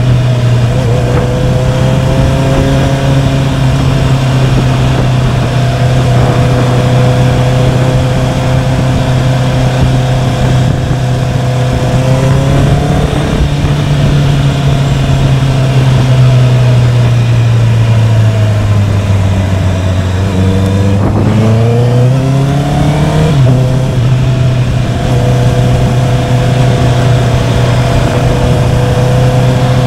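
Honda CBR650R's inline-four engine running steadily at city cruising speed over a steady rushing noise. About twenty seconds in its pitch sinks, then the revs climb quickly for a couple of seconds before it settles back to a steady note.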